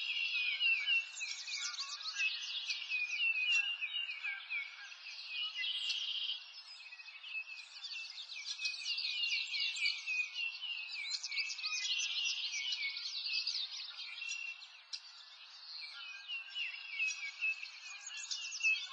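Many birds chirping and trilling at once in a busy, continuous chorus. The chorus is all high-pitched, with nothing low underneath.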